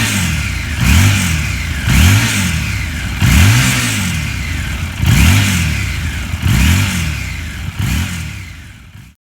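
Harley-Davidson Street 750's liquid-cooled 60-degree V-twin, through its 2-into-1 exhaust, revved in repeated throttle blips, each rising and falling in pitch, about one a second. The sound cuts off suddenly near the end.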